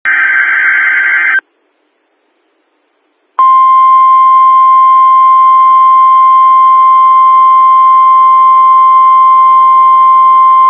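NOAA Weather Radio emergency alert: the end of a SAME digital header data burst, cut off about one and a half seconds in. After a two-second gap the 1050 Hz warning alarm tone starts, one loud steady held tone, announcing a Severe Thunderstorm Watch.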